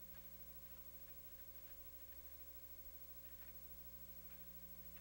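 Near silence: a low steady hum and faint hiss, with a few faint ticks.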